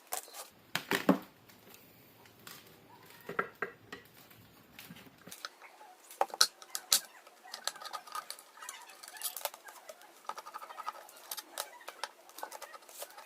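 Irregular clicks, taps and light clatter of hard parts being handled, with a faint low hum that stops about five seconds in.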